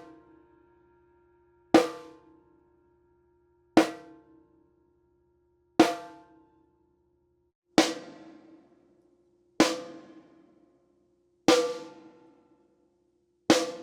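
Tama 10-inch steel-shell piccolo snare drum struck with a stick, seven single hits about every two seconds for a sound check. Each hit rings out with a sustained pitched tone before dying away.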